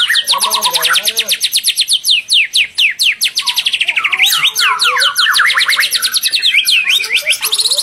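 White-rumped shama (murai batu) singing: a fast, unbroken run of sharply falling whistled notes that shift pitch as the phrase goes on.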